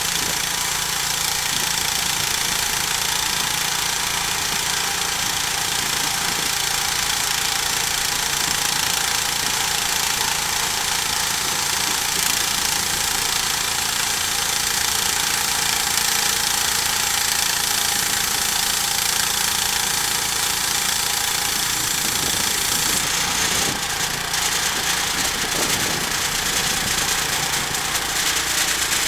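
Sawmill engine running steadily under load while the mill cuts a log, with a few knocks and a brief change in tone about three-quarters of the way through.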